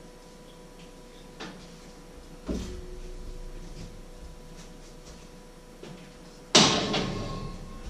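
Kitchen things being handled on a counter: a few light clicks, a knock about two and a half seconds in, then a loud sharp clatter with a brief ringing tail near the end, over a faint steady hum.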